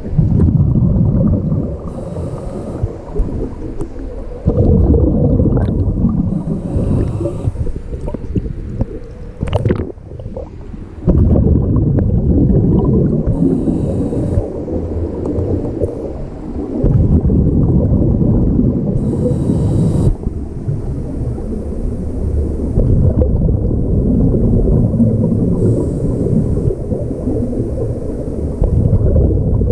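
Scuba breathing heard underwater: a brief hiss through the regulator on each inhale every few seconds, then a long low rumble of exhaled bubbles. A sharp click sounds about ten seconds in.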